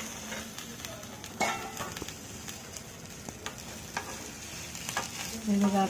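A spoon stirring and scraping cooked cluster beans in a hot nonstick pan, with a faint sizzle from the pan and a handful of sharp clicks where the spoon strikes the pan.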